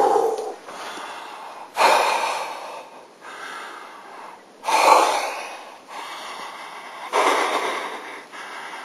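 A man breathing hard and heavily, with loud rushing breaths about every two and a half seconds.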